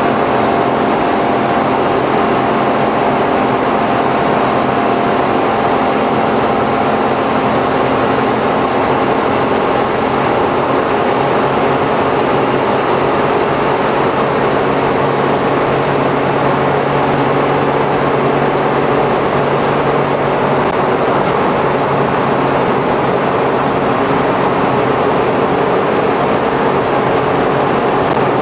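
Interior running noise of a Suzuki Every kei van with Auto Gear Shift, heard from the cargo area while it cruises at steady speed. The three-cylinder engine drones under steady road and tyre noise, with no gear change.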